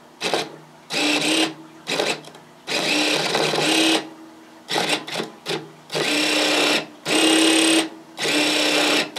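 The electric motor of a new front-axle 4WD shift actuator from a 2007 Dodge Ram 1500, bench-tested off a battery, whines in about eight separate runs of half a second to a second as the ground wire is touched on and off. It runs each time, showing the replacement actuator works.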